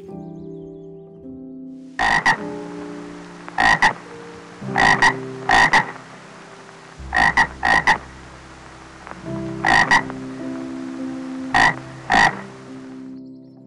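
A frog croaking in short calls, about a dozen of them and mostly in quick pairs, over the steady rush of a stream. The croaking starts about two seconds in.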